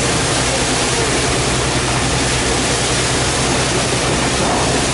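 Engine of a wooden Mekong river boat under way, a steady low drone beneath a loud, even rush of water past the hull.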